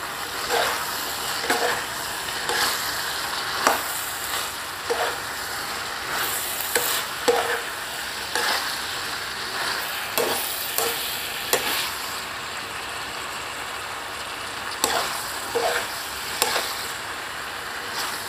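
Chicken gizzards and diced vegetables sizzling in a frying pan while a metal spoon stirs them, its strokes scraping and tapping against the pan at irregular intervals. The stirring grows sparser after about twelve seconds while the frying hiss goes on.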